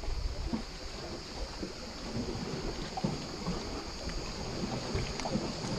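Wind rumbling on the microphone over a steady hiss, with a few faint taps and clicks as pliers work the hook out of a grouper's mouth.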